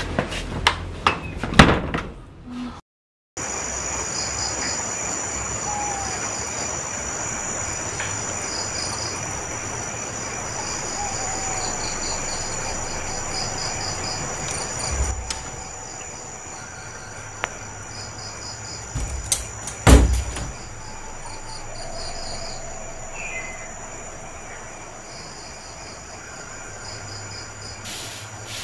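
Crickets chirping steadily, repeated high chirps over a constant high trill, with a single sharp thump about twenty seconds in.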